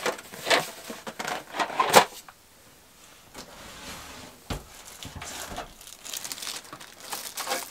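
Handling noises from storage items being moved about: rustling of packaging with light clicks and knocks, and one dull thump about four and a half seconds in.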